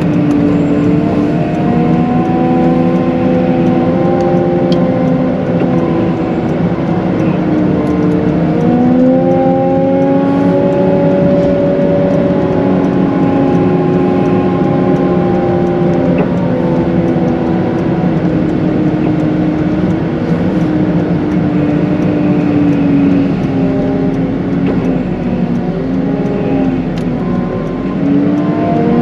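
Cat 906M compact wheel loader's diesel engine working, revving up and easing off several times so its pitch rises and falls.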